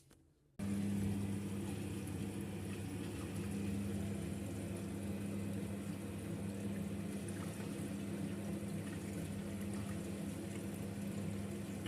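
Washing machine at the start of its rinse cycle: water rushing through the machine with a steady low hum, starting abruptly about half a second in.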